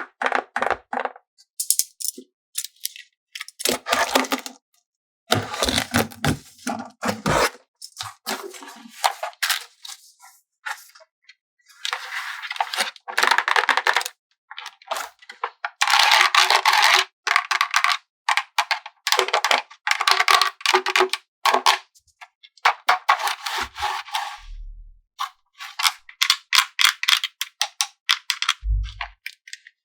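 Handling of toy packaging and plastic toy pieces: crinkling wrappers, rustling and light clicks and taps, coming in short irregular bursts with sharp silent gaps between them.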